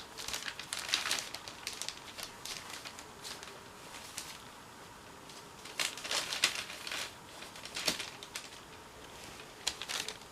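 Irregular rustling and crinkling in short bursts, loudest about six to seven seconds in.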